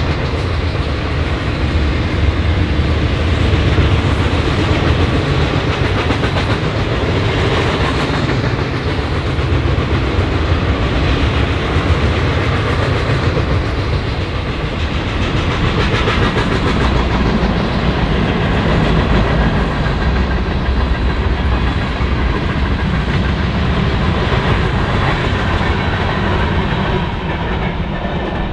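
Freight train of boxcars and covered hoppers rolling steadily past close by: a continuous heavy rumble of steel wheels on rail, with repeated clicks as the wheels pass.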